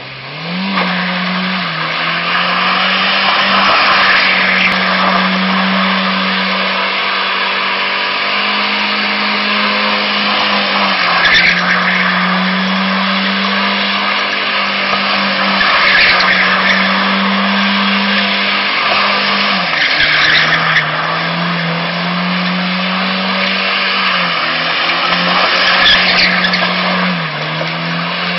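Mercedes-Benz W124 2.3's four-cylinder petrol engine revved up in the first second and then held at steady high revs during a burnout, dipping briefly now and then, while the spinning rear tyres squeal against the tarmac, swelling louder several times.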